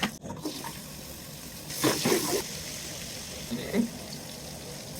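Water running in a kitchen during cooking, with a brief louder rush about two seconds in.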